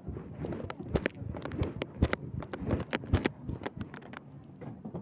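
Irregular knocks, clicks and rustling: handling noise of a phone camera rubbing against cloth, several sharp knocks a second, thinning out near the end.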